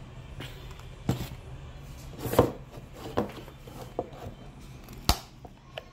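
Cardboard watch gift boxes being handled and opened: a series of knocks and taps of box and lid, with a short scrape about two and a half seconds in, the loudest knocks about two and a half and five seconds in.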